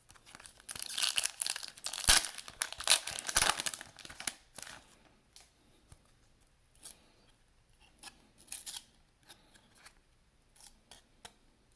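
A trading-card pack wrapper being torn open with a crinkling, crackling rip lasting about three seconds, followed by scattered light rustles and clicks of the cards being handled.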